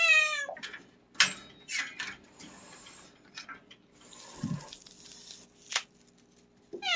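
Cat giving a short, falling yowl, then hissing and spitting several times, with another falling yowl near the end: a defensive warning.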